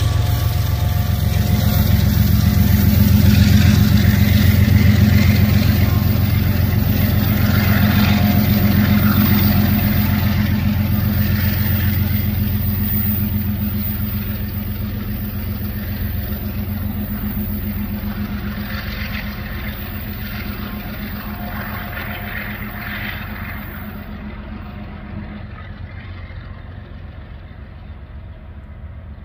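Diesel freight train going by: a steady low engine drone with the noise of rolling cars, loudest in the first ten seconds and then fading steadily as it moves away.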